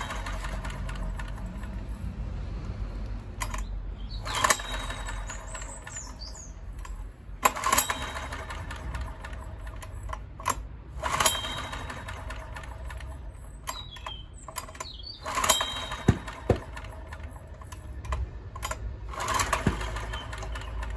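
Honda EX1000 portable generator's engine running rough under an 800 W heater load, with sharp pops every few seconds at irregular intervals. The owner takes the pops for backfiring through the carburettor.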